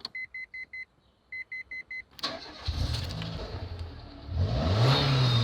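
Two sets of four short, high beeps, then a car engine cranking, catching, revving up once and settling back while running.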